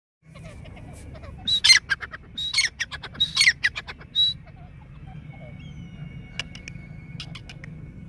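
Irani teetar (grey francolin) calling: a run of about four loud, harsh, ringing calls roughly a second apart, from about one and a half to four seconds in, then softer chirps, over a faint steady low rumble.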